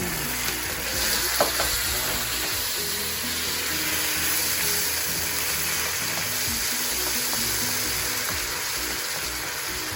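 Garlic, onions and ginger sizzling and frying in a hot pot with fish sauce just added, being stirred; the sizzle grows brighter about a second in. Faint background music plays underneath.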